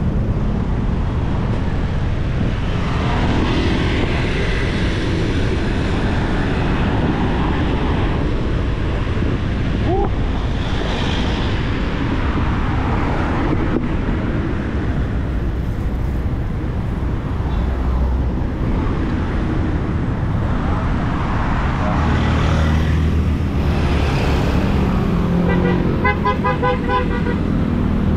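Road traffic heard from a moving bicycle: a steady low rumble with cars and motorcycles swishing past now and then. Near the end a vehicle horn sounds in a quick run of toots.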